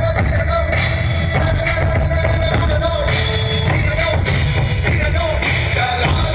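Loud dance music played through a large outdoor DJ sound system, with heavy, steady bass and a few sharp cymbal-like hits.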